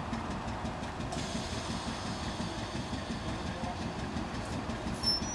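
A train standing at a platform with its engine idling, a steady low rumble. A faint high hiss comes in about a second in, and there is a brief high-pitched chirp near the end.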